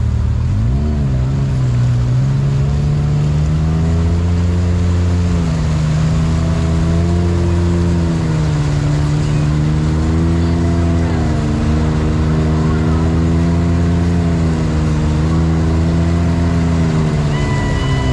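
Vehicle engine running while being driven. Its pitch climbs about a second in, then rises and falls gently with the throttle over a steady low rumble.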